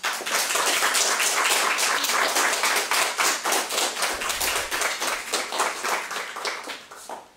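Small audience applauding, a dense patter of many hands clapping that dies away near the end.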